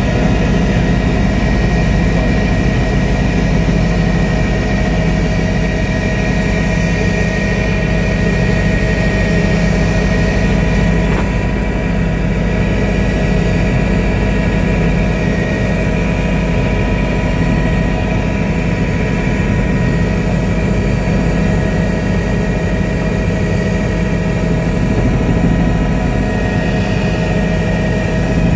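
Helicopter in steady forward flight: a constant engine and rotor drone, with a low rumble and several steady high whines over it.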